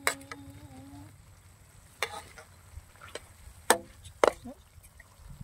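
Metal spatula stirring diced food in a large aluminium pan, scraping and knocking against the pan about four times.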